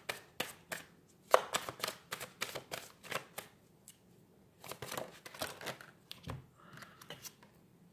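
A deck of tarot cards being hand-shuffled: quick runs of card flicks and slaps in several bursts, with a short pause around the middle. A soft knock near the end as the deck is squared on the table.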